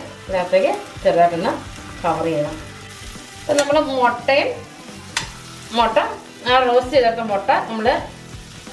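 Metal spoon scraping and stirring masala in a stainless steel pan, in repeated strokes about once a second, each with a wavering metal-on-metal squeal, over a faint frying sizzle.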